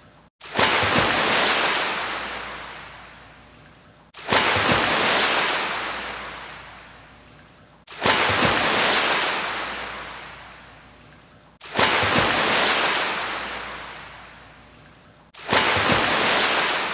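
Ocean surf sound effect, looped: a wave crashes in suddenly and fades away, repeating about every four seconds, five times.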